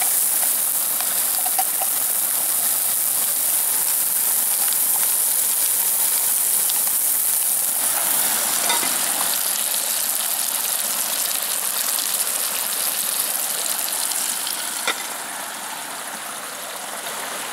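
Sausages sizzling in a frying pan over a canister stove's burner, a steady hiss. A metal lid clicks down onto the pan about 15 seconds in, and the hiss is a little quieter after that.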